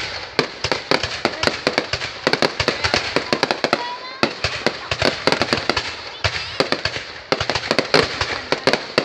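A long run of firecrackers going off in rapid, dense pops, with a few brief lulls between runs.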